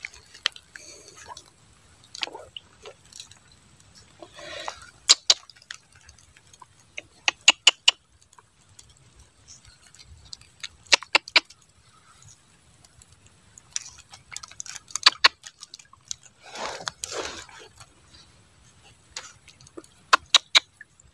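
Small water plips and drips at a flooded eel hole as the fishing line is jiggled in it. They come as scattered short sharp clicks in small clusters of a few at a time, with quiet between.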